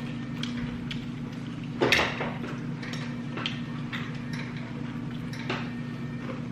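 Eating utensils clicking and knocking against dishes, with a louder clatter about two seconds in, over a steady low hum.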